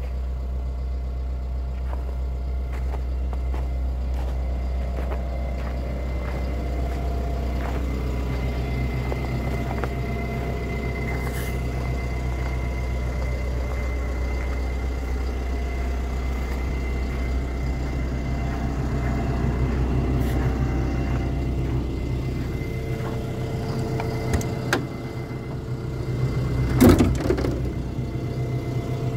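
Atlas 140 W wheel excavator's diesel engine idling steadily, with scattered crunching footsteps in snow. Near the end comes a loud knock and clatter as the cab door is opened.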